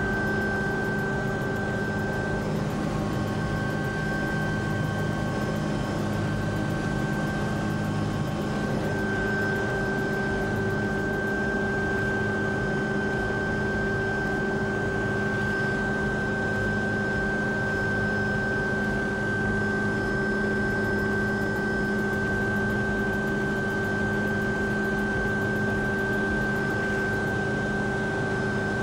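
Helicopter engine and rotor noise heard from inside the cabin: a loud, steady drone with a constant high whine over lower hums.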